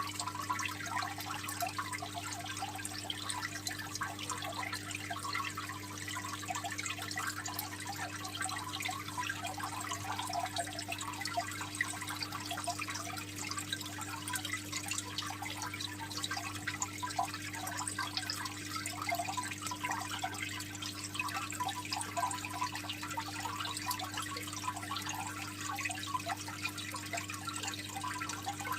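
Water trickling and splashing continuously in a home aquarium, a fine, even patter of small drips, with a steady low hum underneath.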